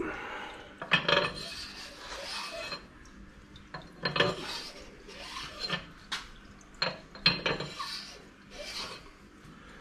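A brush scrubbing out the cylinder bores of a freshly honed Ford Zetec engine block: irregular rasping strokes against the bore walls, loudest about a second in and around four seconds in, with a few sharp knocks between them.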